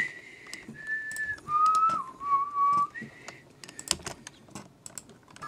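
A tune whistled in short held notes, one gliding down, followed from about three and a half seconds in by a quick patter of computer keyboard and mouse clicks.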